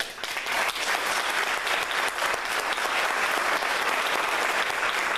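Audience applauding. It breaks out at once, fills out within about half a second and then holds steady.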